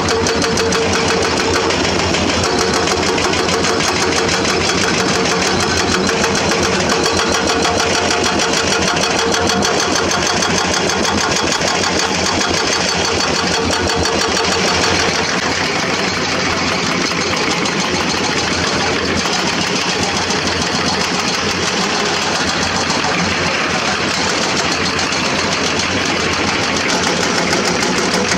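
Excavator-mounted hydraulic rock breaker hammering limestone in a rapid, unbroken run of blows, over the excavator's running diesel engine. The hammering changes character about halfway through.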